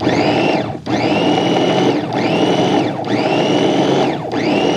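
Electric meat and vegetable grinder with a stainless steel blade, run in short pulses of about a second each, four times over. Its motor whine rises at each start and falls at each stop, over the noise of the blades chopping food in the glass bowl.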